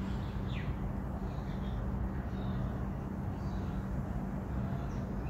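Steady outdoor background hum: a constant low tone over a low rumble, with a few faint, short high chirps.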